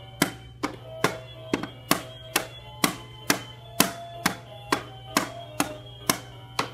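Background music with a steady percussive beat of about two clicks a second and a light plucked melody over a low hum.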